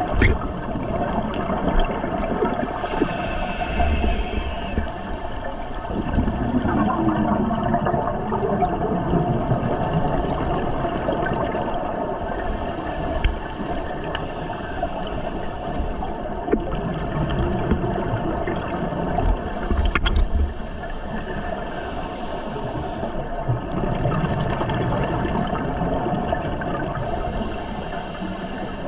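Scuba regulator breathing heard underwater: several bursts of exhaled bubbles, a few seconds each and several seconds apart, over a steady low underwater rumble.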